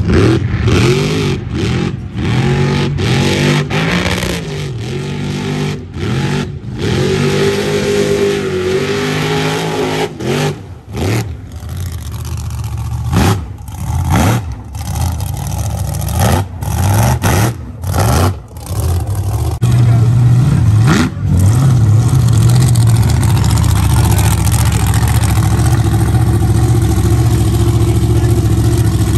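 Mud trucks' big engines revving hard, the pitch rising and falling again and again, then broken up by many short gaps. From about two-thirds of the way in, a mega truck's engine runs steadily and loudly close by.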